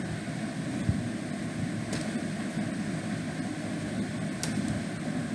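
Steady low background hum, with a few short sharp clicks about two seconds in and twice more near the end, which are keystrokes on a computer keyboard.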